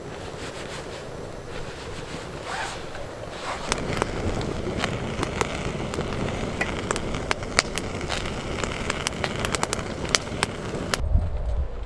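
Wood fire crackling, with many sharp, irregular pops that get busier about three and a half seconds in. The crackle cuts off near the end, giving way to a low rumble.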